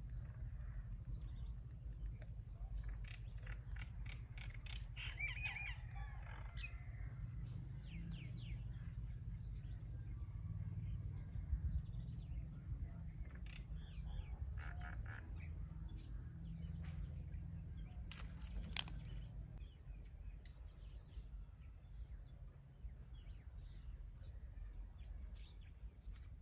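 Small birds chirping in short, scattered calls over a steady low rumble, with one sharp click about two-thirds of the way through.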